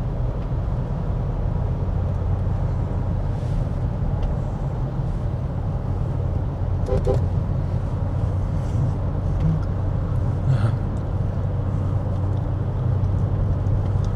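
Steady drone of road and engine noise heard from inside a car moving slowly in motorway traffic. A brief double toot of a vehicle horn comes about seven seconds in.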